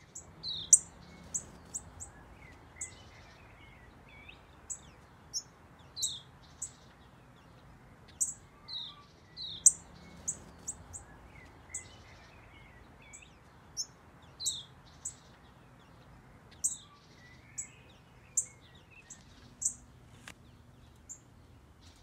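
Small aviary birds, finches among them, chirping: many short, high chirps and tweets, some sliding down in pitch, scattered one to a few a second over a faint steady background noise.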